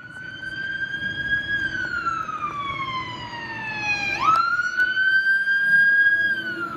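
Fire engine siren wailing. The pitch rises, falls slowly for a few seconds, snaps quickly back up about four seconds in, holds, and starts falling again near the end, over a low rumble.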